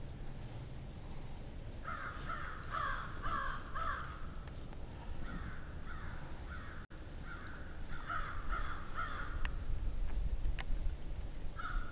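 A crow cawing in three runs of short harsh calls, several caws in each run.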